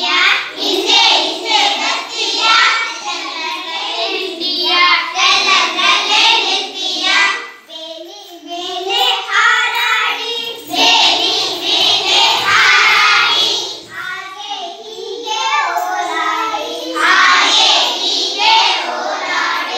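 A group of young children singing an action song together, pausing briefly about eight and fourteen seconds in.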